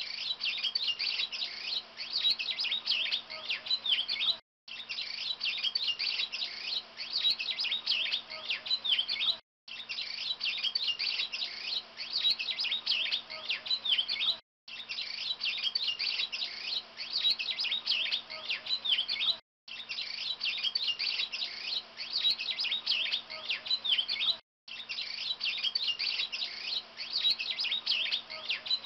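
Many small birds chirping at once in a dense, busy chorus of short high chirps, on a loop that drops out to silence for a moment about every five seconds. A faint steady low hum runs underneath.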